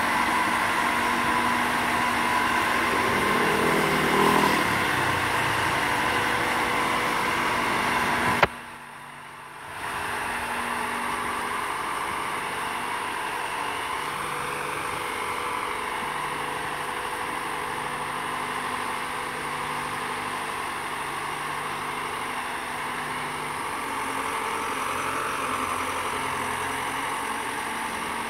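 Engine of a boat travel lift running steadily while the gantry drives slowly with a fishing boat slung beneath it. About eight seconds in, the sound drops out abruptly for about a second and a half, then resumes.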